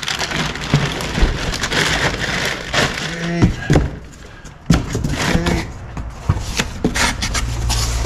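Cardboard boxes and packaging being handled: irregular rustling, crinkling and knocks, with a brief lull and then a sharp knock a little under five seconds in.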